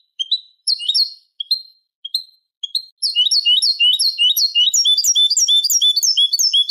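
European goldfinch singing, from a song-tutor recording: a few spaced chirps, then from about three seconds in a fast run of repeated two-part notes, about three a second, on a silent background.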